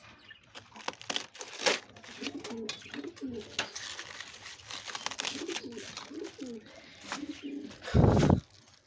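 Pigeons cooing over and over, with the crisp crackle of cabbage leaves being torn off a head by hand. A brief loud bump near the end.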